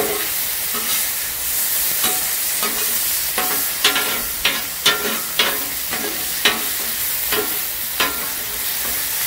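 Sliced green peppers and onions sizzling in oil and butter on a Blackstone flat-top griddle, with two metal spatulas scraping and clacking on the steel cooktop as the vegetables are tossed. The sizzle is steady, and a run of sharp scrapes comes through the middle and latter part.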